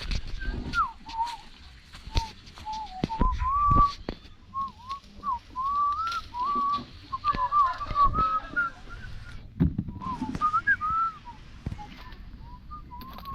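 A person whistling a meandering tune in short gliding notes, with scattered knocks and clatter from handling things, the loudest a few seconds in and again near the end.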